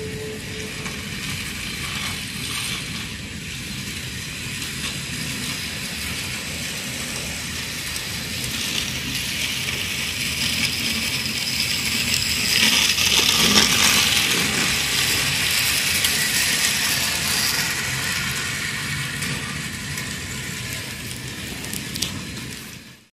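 Battery-powered RailKing toy train running along its track with a steady rolling, whirring rattle. It grows louder to a peak a little past halfway as the train comes nearest, then fades. The train is on a nearly flat battery.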